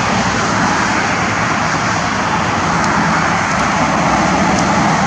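A steady, even rushing noise with a low rumble underneath, with no distinct events.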